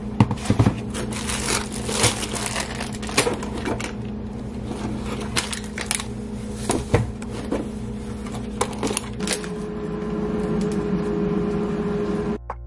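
Groceries being unpacked from a canvas tote bag: the bag and produce bags rustle, and items knock and clatter as they are handled and set down. A steady low hum runs underneath, and a second, higher hum joins it about nine seconds in.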